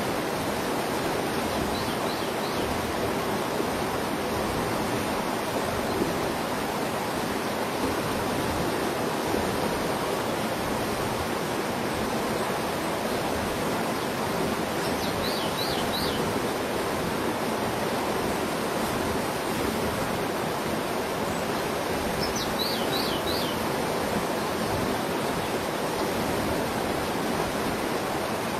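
Steady rush of flowing river water. A small bird breaks in a few times with short, quick runs of high notes, most clearly about halfway through and again near three quarters.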